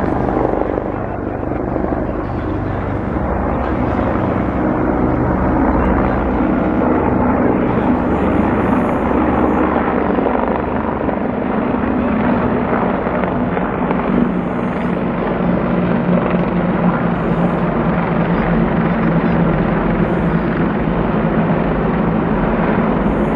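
Four military helicopters flying past overhead in formation: a steady, loud drone of rotors and turbines with a rapid rotor beat.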